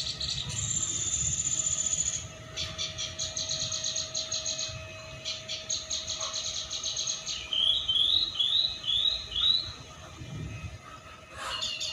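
Bird chirps and trills: stretches of rapid high pulsing trills, then a run of five quick rising chirps about eight seconds in.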